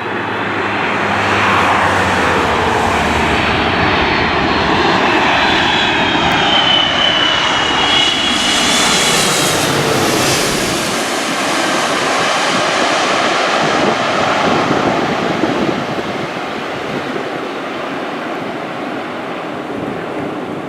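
Airbus A330 twin-engine airliner passing close overhead on its landing approach. The engine whine glides down in pitch as it goes by, loudest about halfway through, then fades to a duller rumble.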